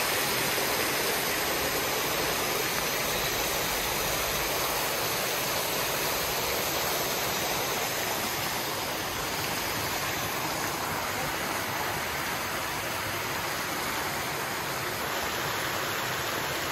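Backyard pool water features running: arcing deck jets and a waterfall spout splashing into the pool, a steady rush of falling water.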